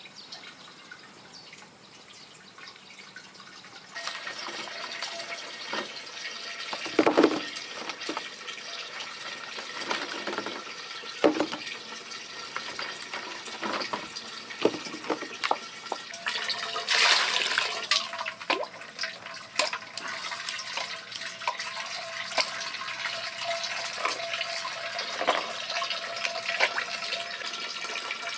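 Water running and splashing, with scattered knocks and clatters.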